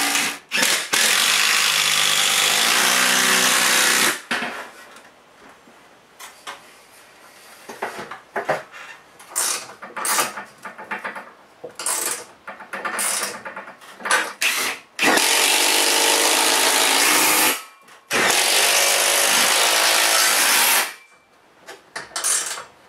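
Cordless drill driving screws to fasten a steel garage-door track bracket to a wooden block: three long runs of the motor, one about four seconds long near the start and two shorter ones in the second half. Between the runs there are light metal clinks and knocks from the track being handled.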